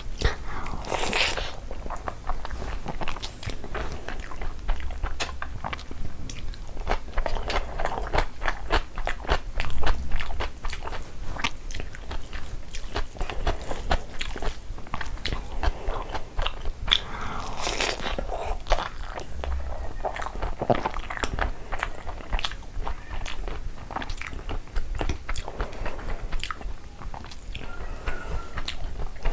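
Close-miked eating of mutton curry and pulao: continuous chewing and biting, with many small crunches and clicks and a few louder bites.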